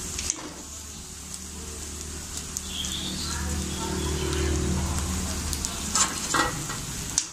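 Kalan fritters deep-frying in a kadai of hot oil, crackling and sizzling as a wire spider strainer lifts them out. Several sharp metal clinks about six seconds in and again near the end as the strainer knocks against a steel colander.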